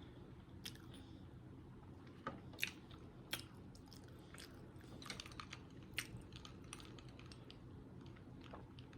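Close-miked chewing of a sausage, egg and cheese biscuit: soft, irregular mouth clicks and smacks over a low steady hum.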